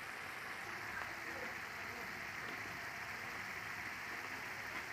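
Coconut-milk sauce simmering and sizzling in a wok, a steady bubbling hiss. The sauce has reduced far enough that the coconut oil is separating out.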